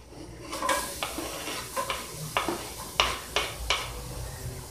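Chopped onion going into hot oil in an aluminium pot and sizzling, with a string of sharp knocks and scrapes as it is pushed off a wooden cutting board and stirred.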